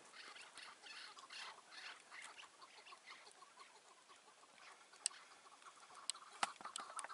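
Chukar partridges calling faintly with quick chattering, clucking notes that thin out in the middle and pick up again near the end. A few sharp clicks come in the second half.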